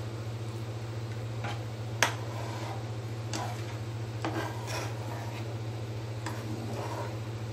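Metal spoon stirring a thin ragi-flour and jaggery batter in a pan, scraping the pan in about seven short, irregular strokes over a steady low hum.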